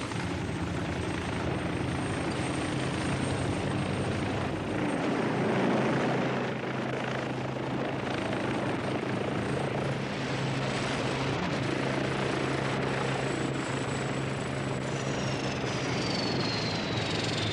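A helicopter running steadily. Near the end a high whine glides down in pitch.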